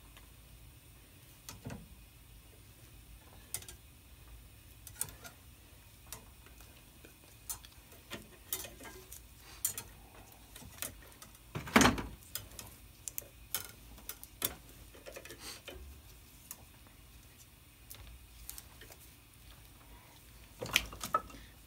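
Scattered light metallic clicks and taps as a new nickel-copper brake line is bent by hand and with line-bending pliers at a bench vise. There is one louder knock about halfway through and a quick cluster of clicks near the end.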